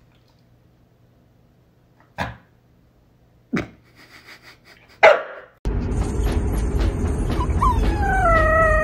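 A husky-corgi mix gives three short barks, each about a second and a half after the last. Then, inside a moving car over a steady low road rumble, a white husky puppy starts a long howl that falls in pitch near the end.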